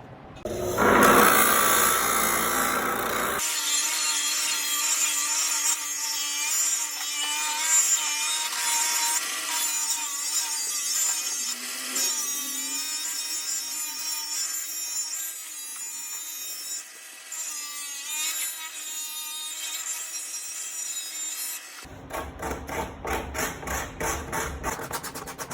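A power tool cutting into material, with a steady whine over a rasping, sawing noise. It starts with a loud harsh burst in the first few seconds. Near the end it gives way to a fast, even pulsing.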